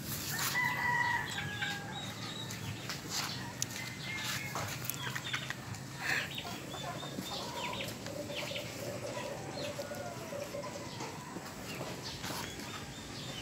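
Chickens clucking in the background, with a rooster crowing, among scattered short clicks and scuffs.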